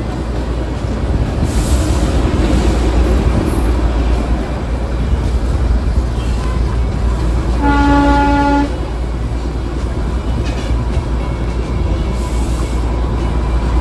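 Darjeeling Himalayan Railway toy train running under diesel power, a steady rumble from the engine and wheels. About eight seconds in, the train's horn sounds once, a single steady note lasting about a second.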